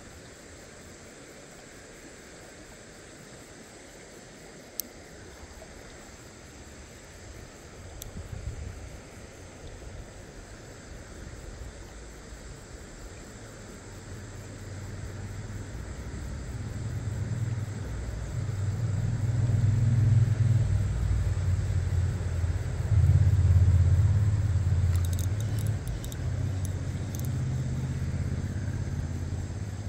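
A low rumble builds through the second half and stays loud to the end, over a faint, steady high insect chirring. There is a single sharp click early on and a few high clicks near the end.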